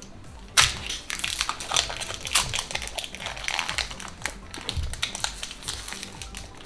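Pokémon trading card packs and cards being handled: a sharp crackle about half a second in, then a run of quick crinkles, rustles and taps.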